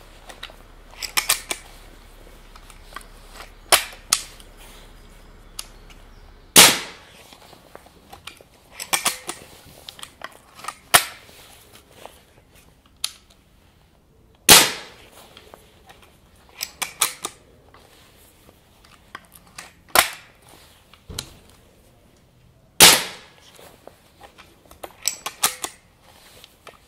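Hatsan Proxima gas-ram underlever air rifle firing three shots about eight seconds apart, each a sharp crack. Between shots come clusters of smaller clicks and clunks as the underlever is cocked, which indexes the next pellet from the magazine, and the safety is released.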